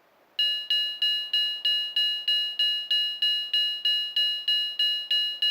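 Model railway crossing bell sound ringing at an even, slowed-down rate of about three strikes a second, each strike a bright clang that decays before the next. It starts about half a second in and cuts off sharply at the end.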